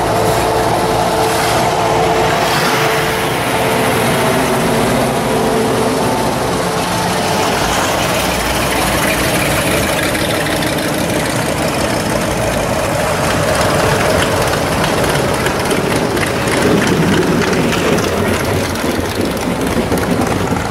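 Engines of classic cars and hot rods running at low speed as they roll past one after another: a first-generation Chevrolet K5 Blazer, then a Cobra-style roadster, then a Chevrolet Vega wagon.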